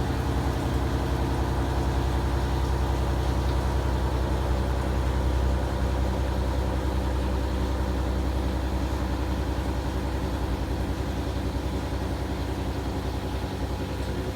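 CNC gear hobbing machine (EIFCO Hobber 250 R) running mid-cycle: its direct-drive hob spindle turns a two-start hob at about 320 RPM, cutting the teeth of a 26-tooth sprocket. The sound is a steady, even machine hum with several constant tones.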